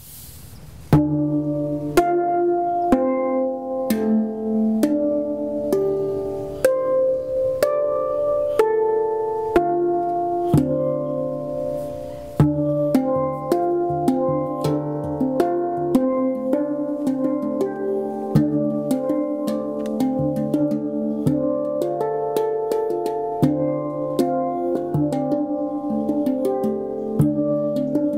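Steel handpan (Pantam drum) played with the fingers: a continuous stream of struck notes that ring and overlap, with a deep low note sounding every couple of seconds underneath. The playing begins about a second in.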